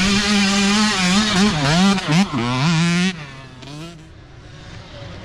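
Small youth dirt bike engine revving hard through a muddy creek crossing, its pitch rising and falling as the throttle is worked on and off. About three seconds in the sound drops sharply and fades as the bike rides away.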